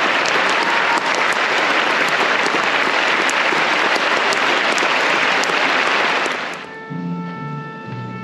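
Concert-hall audience applauding, a dense steady clapping that cuts off abruptly about six and a half seconds in, giving way to music of slow, held notes.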